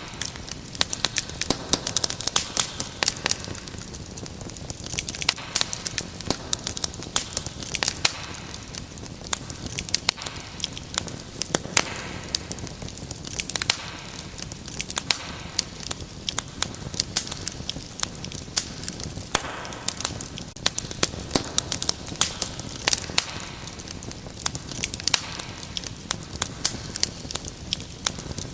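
Wood fire crackling: a dense run of sharp pops and snaps over a steady low hiss of burning logs.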